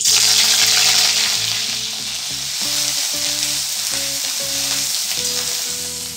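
Grated ginger hitting hot oil in a metal kadai: a loud sizzle that starts at once and slowly dies down as the ginger is stirred with a metal spatula.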